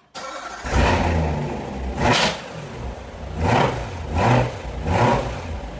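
Car engine revving in about five short surges over a steady running sound.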